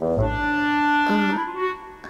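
Background drama score: a melody of long held notes that moves to a lower note about a second in, over a low bass note near the start.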